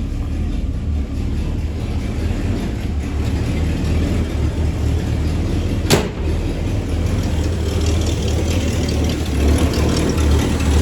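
AMC 287 V8 engine of a 1965 Rambler Classic 770 running at idle, shortly after being started warm, through a single Super 44 muffler. A sharp click sounds about six seconds in, and the engine gets a little louder near the end.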